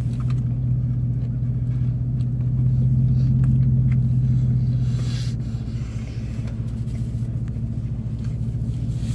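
A vehicle's engine idling with a steady low hum, heard from inside the cab, with faint chewing and paper rustles over it.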